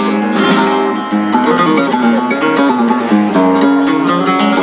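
Flamenco guitar playing fandangos, chords strummed in quick strokes between picked notes.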